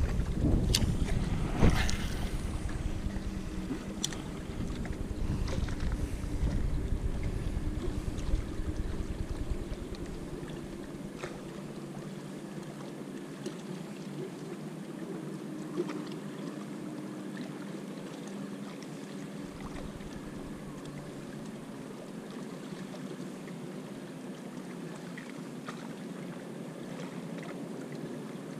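Wind buffeting the microphone, heavy for about the first ten seconds, then dropping to a steadier, quieter rush of wind and water. A few sharp clicks come in the first couple of seconds.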